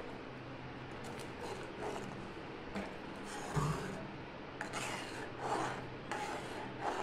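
A spoon stirring thick curry gravy in a pan, gently folding in paneer cubes, with soft, irregular scraping strokes against the pan.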